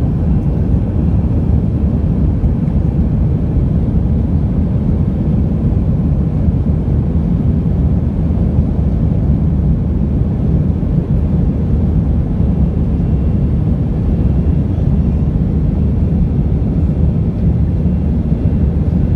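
Airbus A319 jet engines and rushing air heard inside the passenger cabin during takeoff: a steady, loud, low rumble.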